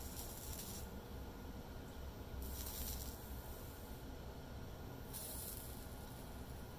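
Flux sizzling in short hissing bursts as a hot soldering iron melts lead solder onto fluxed copper foil, three times about two and a half seconds apart, over a low steady rumble.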